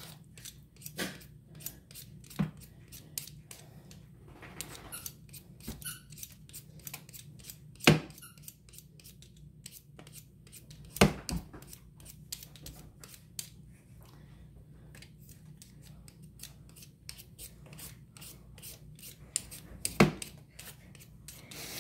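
Hand-held vegetable peeler scraping the skin off a raw potato in many short, quick strokes, with a few louder sharp knocks.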